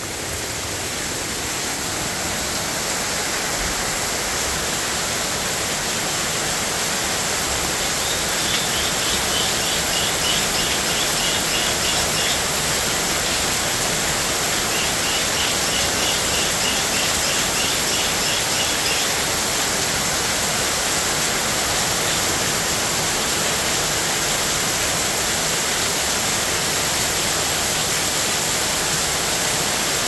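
Heavy rain pouring down steadily, with water streaming off the roof edges. Twice in the middle a bird gives a rapid run of high chirps over the rain.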